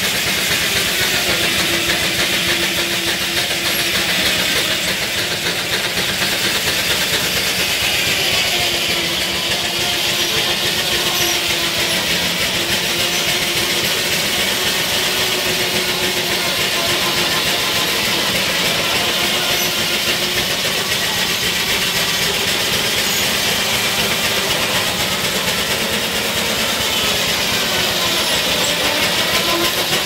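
Antique steam traction engine running steadily, belted to a sawmill, with the mill's machinery running alongside: a dense, even mechanical clatter with a wavering hum, unchanged throughout.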